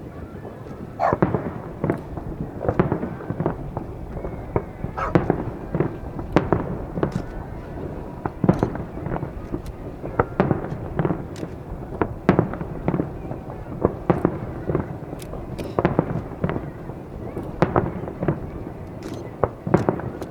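Fireworks display: shells bursting in quick, irregular succession, a few sharp bangs every second, over a continuous rumble of echoing reports.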